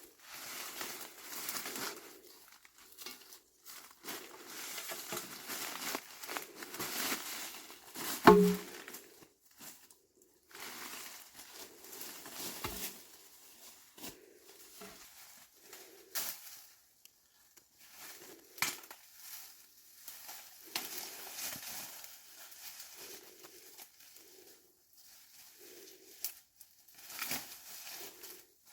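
Irregular crinkling and rustling of something being handled, with one loud knock about eight seconds in and a few lighter clicks.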